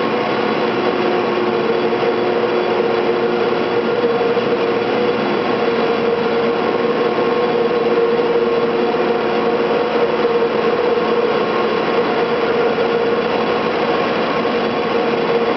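Steady mechanical drone of the cable car powerhouse's winding machinery, the big sheaves turning and the steel haul cables running through them. It holds one strong hum with several fainter held tones over a constant rumbling noise.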